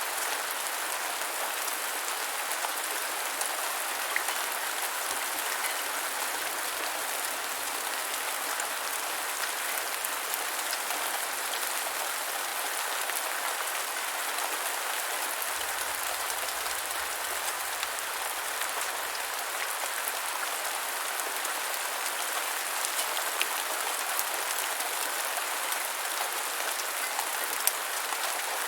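Steady rain falling on the ground, an even patter with scattered louder drop ticks.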